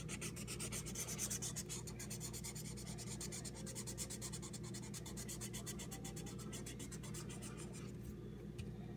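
Faint, rapid, even scratching, several light strokes a second, over a steady low hum; the scratching thins out near the end.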